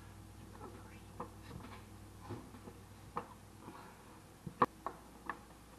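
Light, scattered metal clicks and knocks as a car power seat's steel track frame and motor assembly are handled and fitted back together, with one sharper clank near the end.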